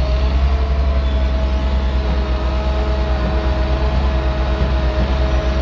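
Heavy diesel engine of road-works machinery running steadily, with a deep low rumble and a steady whine held on one pitch over it.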